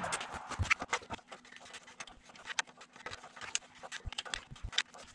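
Scattered small metallic clicks and taps of an Allen wrench working at a stubborn bolt on a Cummins diesel engine, with a faint steady hum starting about a second in.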